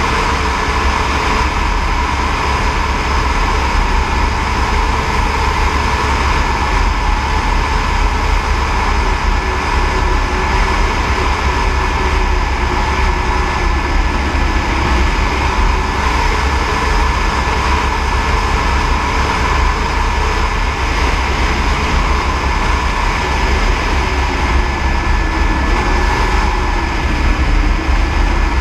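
Airbus AS350 B3e Écureuil helicopter in flight, its turbine and rotor running steadily, with a high steady whine over a heavy low rumble.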